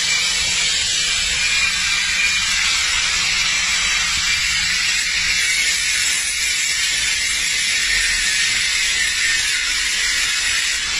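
Electric angle grinder running steadily, its disc cutting metal with a continuous high hiss.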